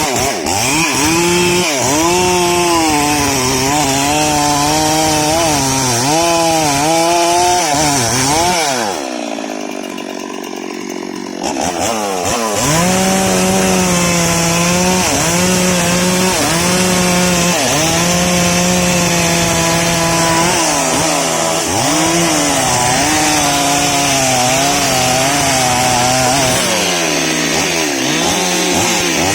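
STIHL MS 382 two-stroke chainsaw cutting through sengon wood, its engine pitch sagging and recovering again and again as the chain bogs under load. About nine seconds in it drops to a lower, quieter idle for a couple of seconds, then revs up and cuts again.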